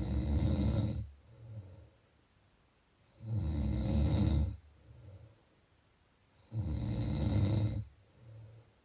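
A person snoring in a slow, even rhythm: three loud, rasping snores about three seconds apart, each followed by a shorter, softer breath sound.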